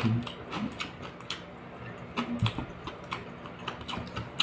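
Close-up chewing of crispy cooked lizardfish head: irregular sharp crunches and clicks, a few a second, as the mouth works through the crisp head.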